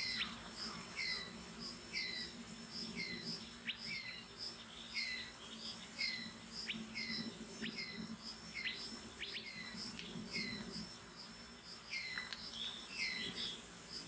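Minivet calls: short down-slurred whistles repeated about twice a second, over a steady high-pitched insect drone.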